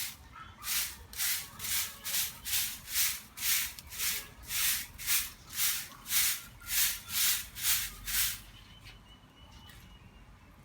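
A broom sweeping outdoors in steady, even strokes, about two a second. The sweeping stops about eight seconds in.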